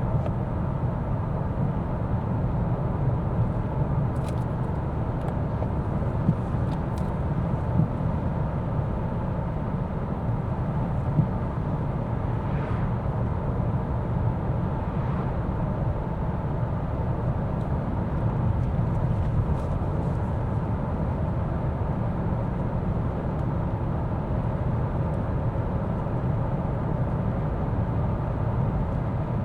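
Steady low rumble of road and tyre noise, with the Mercedes-Benz S 450d's inline-six turbo diesel running underneath, heard inside the cabin while cruising.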